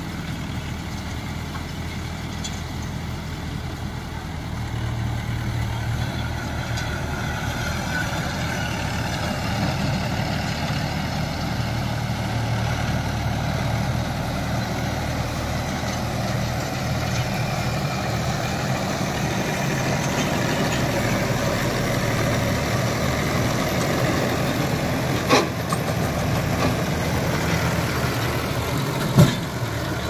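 Sanman 6000 tractor engine running steadily while driving an Ambal straw baler. Two sharp knocks sound near the end, a few seconds apart.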